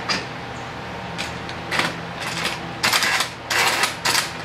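Parallel bar clamp's sliding jaw being worked along its chrome-plated hardened steel bar: a run of short mechanical clicks and scrapes, the longer and louder ones in the second half.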